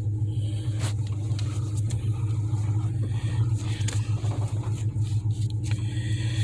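Ford Ranger pickup's engine running with a steady low hum, with a couple of faint clicks.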